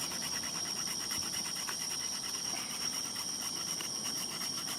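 Crickets trilling steadily, a continuous high-pitched chirring with a rapid, even pulse.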